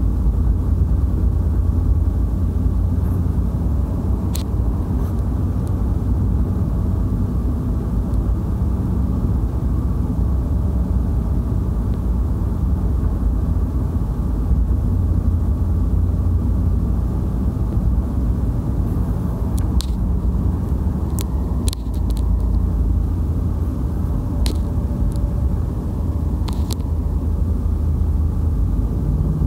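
Steady low rumble of road and engine noise inside a moving car's cabin. A few short sharp clicks sound through it, most of them in the second half.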